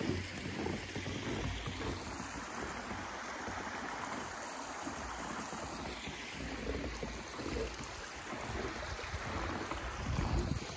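Small woodland brook running, a steady rush of water, with wind buffeting the microphone in low rumbles that grow stronger near the end.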